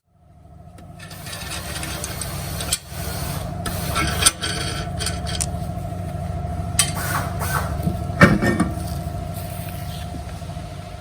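Car in motion heard from inside: steady road rumble building up over the first few seconds, with a steady wavering whine riding over it and a few sharp knocks. This is the running noise the mechanic traces to a failing rear wheel hub bearing.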